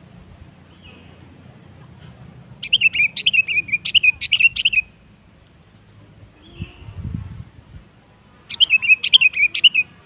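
Sooty-headed bulbul (kutilang) song: two bursts of quick, bubbly chirping notes, each lasting about two seconds.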